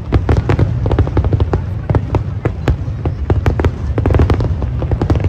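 Fireworks going off: a rapid, irregular string of sharp bangs and crackles over a continuous low rumble.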